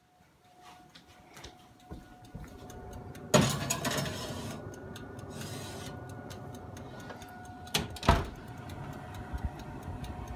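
Kitchen oven being opened and its rack handled: a loud clunk about three seconds in, then a steady hum with light ticks, and two sharp metal clacks near eight seconds as the glass baking dish of cupcakes on the wire rack is handled.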